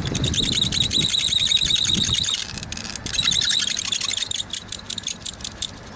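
A wooden hand-drill spindle with a deutzia tip is spun back and forth between the palms in the socket of a cedar hearth board, giving a rapid, rhythmic, high squeak of wood on wood as it works up friction to make an ember. There is a brief break about two and a half seconds in, then the squeaking goes on.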